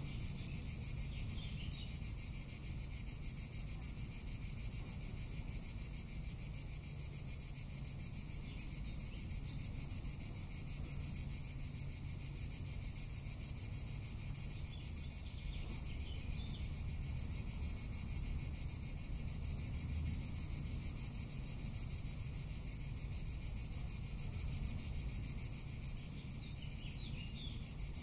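Cicadas singing in a steady, unbroken high-pitched chorus, with a low rumble underneath.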